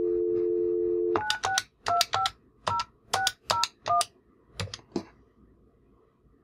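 Grandstream GRP2612 IP desk phone on speakerphone: a steady dial tone that stops about a second in, followed by eight short DTMF key tones as a number is dialed, each with the click of the keypad button. A couple of button clicks follow near the five-second mark as the call is placed.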